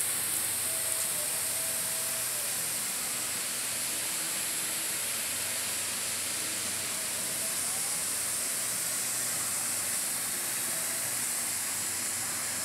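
Steady high hiss of water spraying as a fine mist from a nozzle on a garden hose, with the automatic irrigation valve held open.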